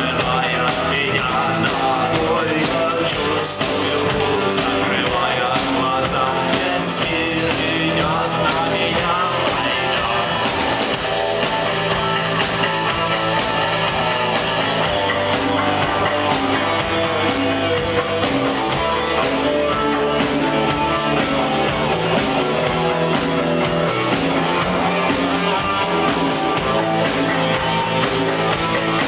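Live rock band playing: electric guitars, bass and drums, steady and loud throughout.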